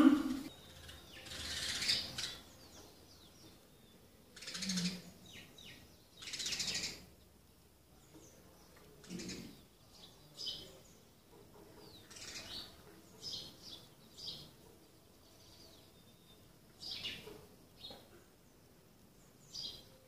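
House sparrows chirping in short, scattered clusters of high calls every second or two. Right at the start there is a brief loud sound that rises in pitch.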